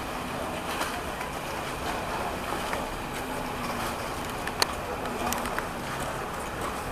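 Boat engine running steadily on the open water of a busy waterfront, with a constant wash of water and wind. A single sharp knock sounds about four and a half seconds in.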